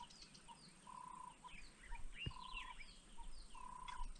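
Wild birds calling faintly: many quick falling chirps, and over them a short steady whistled note repeated about once a second.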